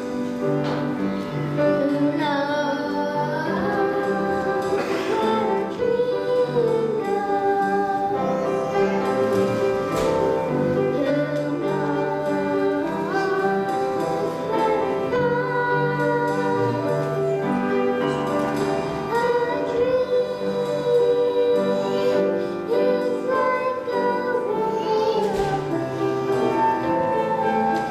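Music with singing: a song with a sung melody over sustained chords and instruments.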